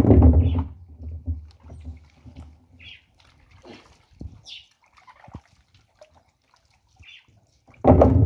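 Water splashing and sloshing in a plastic barrel as soaked cassava roots are dropped in, loudly once at the start and again near the end. Faint bird chirps can be heard between.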